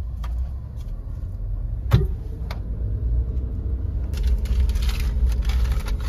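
Suzuki car heard from inside the cabin, its engine running with a steady low rumble. A sharp knock comes about two seconds in. From about four seconds in a louder rustling, ticking noise builds as the car gets moving.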